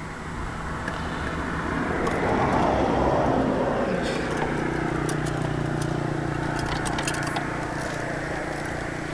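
Road vehicle noise: a vehicle swells past about two to four seconds in, then a steady engine hum carries on, with a few light clicks and rattles over it.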